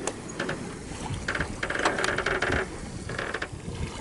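Wind and water noise aboard a sailing yacht under way in light wind. Short bursts of rapid rattling come about a second in, again past the middle, and once more near the end.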